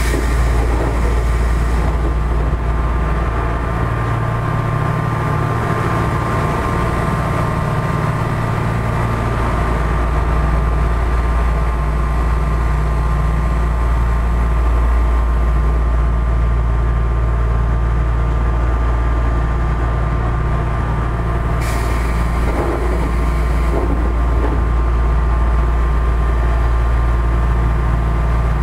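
Interior sound of an Odakyu 1000-series electric commuter car: steady hum of the air conditioning and onboard equipment, loud throughout. About two-thirds of the way through comes a brief hiss of compressed air.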